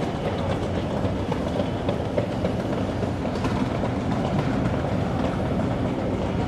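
A train running on rails: a steady rumble with the clatter of wheels over the track.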